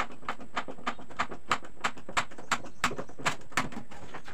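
Hand screwdriver being worked into plywood, making sharp, evenly spaced clicks about three times a second that grow louder and stop about three and a half seconds in.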